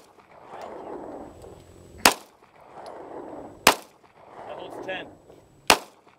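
Three pistol shots from a semi-automatic handgun, unevenly spaced about 1.5 to 2 seconds apart, each sharp crack followed by about a second of echo.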